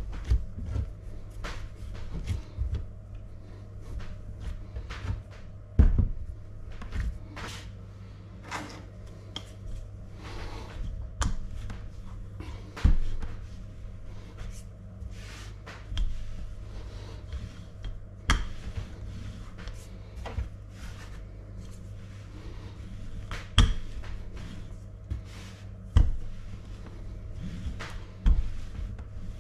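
Cheese pastry dough being pressed together by hand, then rolled out with a wooden rolling pin on a wooden worktop: irregular knocks and thumps every second or two, over a steady low hum.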